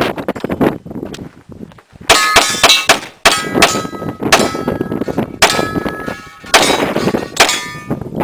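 Steel targets ringing as they are hit, with pistol shots from a Glock 22 in .40 S&W. There are about six sharp hits, each followed by a metallic ring that hangs on for about a second.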